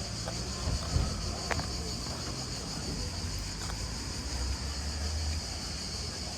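Steady high-pitched insect chorus shrilling without a break, over a low rumble, with a knock about a second in.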